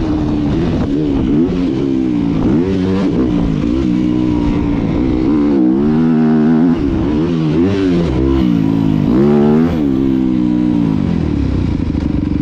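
Yamaha 250 motocross bike's engine being ridden hard on a dirt track, revving up and down over and over with the throttle and gear changes. It settles to a steady note near the end.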